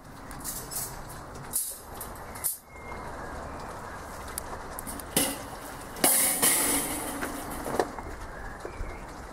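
Wire cooking grate clanking on the metal kettle barbecue as it is set down over the charcoal. A few knocks come about five seconds in, the loudest clatter about six seconds in, and a last knock near the end, over steady outdoor background noise.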